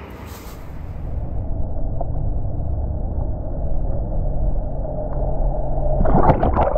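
Muffled water noise picked up by an action camera held under the surface of a river: a steady low rumble with the highs cut off. About six seconds in there is a burst of splashing right next to the camera as a pike moves beside it.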